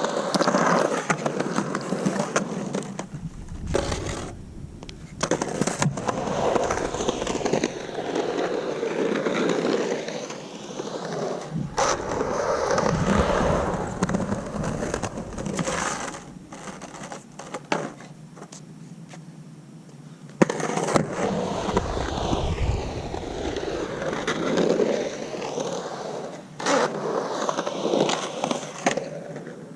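Skateboard on hard 97A Santa Cruz Slime Ball urethane wheels rolling and carving around a concrete bowl. The wheel noise swells and fades with speed, and there are several sharp clacks of kick turns and board impacts.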